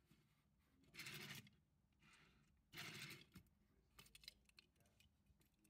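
Diecast Matchbox Range Rover Evoque toy car rolling on a cutting mat: two short, quiet rolling rasps of its small wheels about two seconds apart, then a few light clicks.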